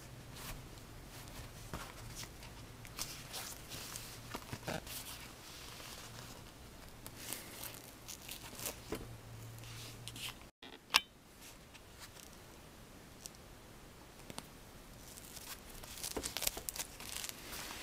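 Hands handling a padded fabric tablet sleeve, with scattered rustling and scraping of its fabric and edging. A steady low hum stops about ten seconds in, followed by one sharp knock and more rustling near the end.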